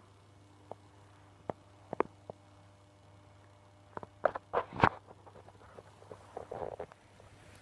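Faint scattered clicks and rustling, with a cluster of louder knocks and rustles about four to five seconds in.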